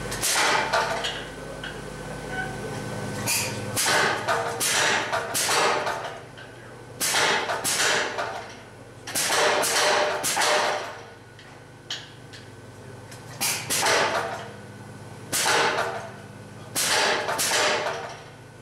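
Power hammer striking a hand-held top tool on red-hot bar stock, in short runs of rapid blows with brief pauses between. A low hum stops about three seconds in.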